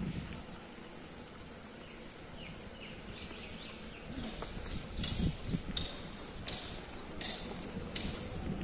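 Footsteps on a paved path, one step about every three-quarters of a second, starting about four seconds in, with a few faint bird chirps just before.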